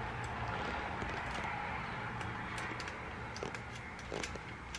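Scattered light metal clicks of a spanner on the valve-adjuster locknut of a small Chinese four-stroke pit bike engine, as the adjuster is tightened after setting the valve clearance, over a steady hiss.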